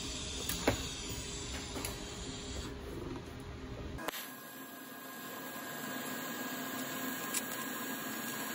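Steady hiss and hum of an AHP AlphaTIG 201X TIG welder working on a bronze bar, with a few faint clicks. About four seconds in the sound changes abruptly and the low rumble drops away.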